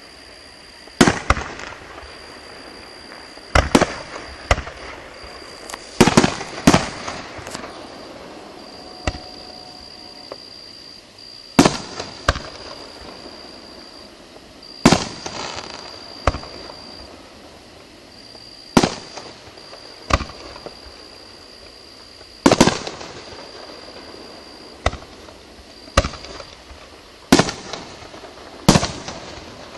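Aerial fireworks shells bursting: a run of about twenty sharp bangs, irregularly spaced a second or two apart, each trailing off in an echo.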